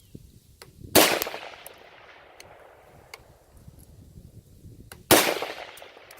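Two rifle shots from an AR-15 firing .223 55-grain ammunition, about four seconds apart, each a sharp crack followed by a decaying echo.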